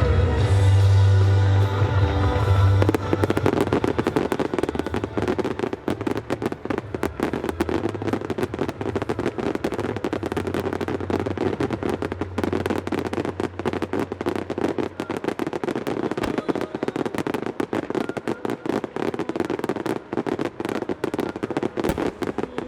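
Fireworks display with music: a music track with heavy bass, then from about three seconds in a dense, rapid stream of firework cracks and bangs over the music.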